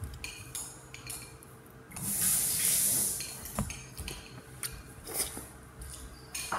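Light clinks and taps of tableware at a table, a few sharp ones spread through, with a loud hissing rush lasting about a second starting about two seconds in.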